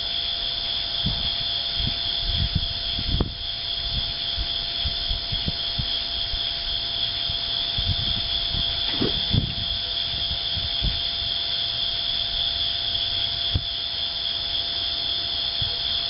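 Steady, high-pitched chorus of insects such as crickets, with irregular low thumps and rumbles underneath.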